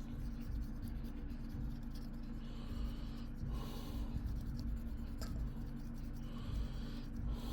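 Soft scrubbing and rubbing as crusty old thermal paste is wiped off a laptop heatsink, coming in short spells over a steady low electrical hum.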